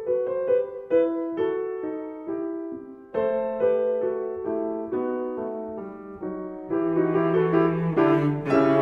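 Background music: a piano playing a slow melody of separate notes, with a sustained low bowed string, like a cello, joining near the end.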